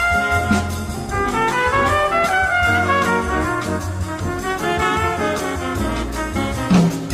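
Instrumental music led by brass, with a bass line and drum hits.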